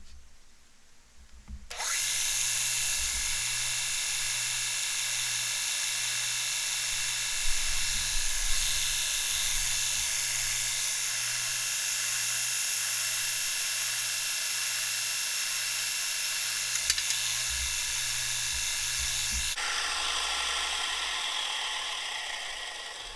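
Bucktool bench grinder and belt sander's electric motor switched on about two seconds in, running steadily with a whine and a low hum, then switched off near the end and winding down.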